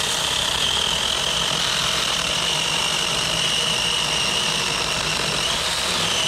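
Taranzy battery-powered mini chainsaw running under load, cutting through a thick log: a steady high whine from the chain and motor over the rasp of the cut, the pitch dipping slightly near the end.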